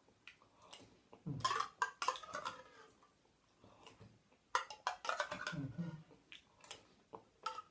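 Someone eating: a spoon clinking and scraping against a metal container, with chewing and mouth noises, in two short spells.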